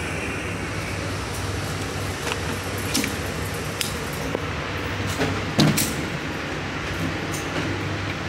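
Steady ventilation hum with a few scattered sharp clicks and knocks, the loudest about five and a half seconds in.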